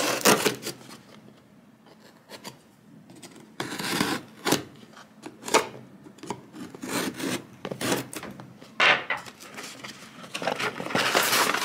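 A knife blade slitting packing tape on a cardboard box and scraping along the cardboard in irregular strokes, with a quieter pause about a second in and a longer, louder rasping stretch near the end.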